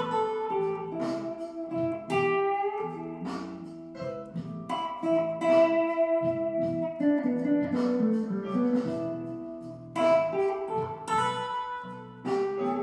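Electric guitar playing a single-note blues lead in E, drawn from the pentatonic scale, over an E blues backing track. The line is made of held notes with a few gliding bends.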